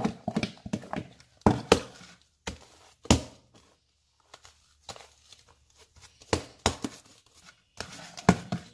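Fluffy homemade slime being scraped out of a plastic bowl, then pulled, torn and squished by hand. It makes irregular sticky squelching and tearing sounds, with a few louder knocks.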